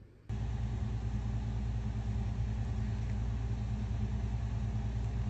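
Cat purring, loud and steady, close to the microphone; it begins suddenly just after the start.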